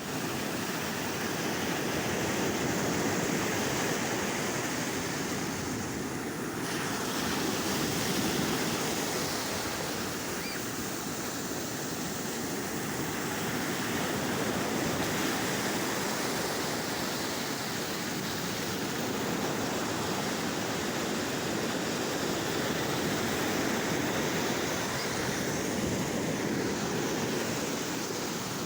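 Sea waves washing onto the shore: a continuous rushing surf that swells and eases gently, with no distinct breaks.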